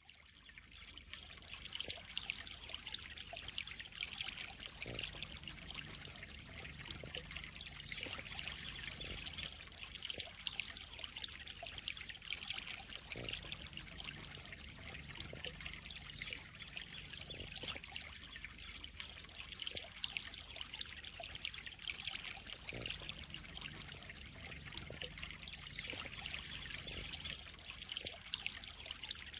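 Water steadily trickling and splashing into a koi pond, a continuous bright hiss with fine crackle that fades in over the first second.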